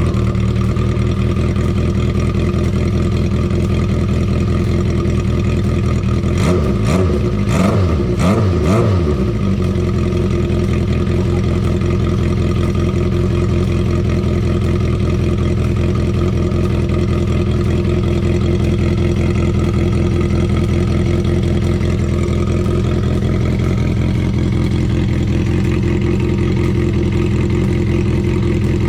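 Honda CB400Four's air-cooled inline-four running through a Yoshimura short 4-into-1 exhaust whose silencer has had its glass-wool packing removed. The throttle is blipped a few times, revs rising and falling, from about six to nine seconds in. After that it settles to a steady idle.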